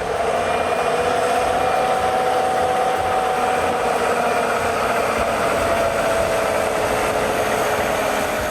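A heavy vehicle's engine running steadily with a high whine that sinks slowly in pitch; the sound cuts in and out abruptly.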